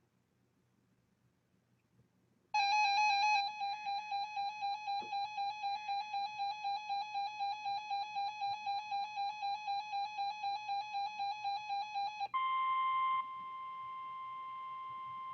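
Weather radio alert alarm: a loud electronic beep tone starts about two and a half seconds in and pulses rapidly, about four times a second. Near the end it gives way to a steady tone near 1 kHz, the NOAA Weather Radio 1050 Hz warning alert tone.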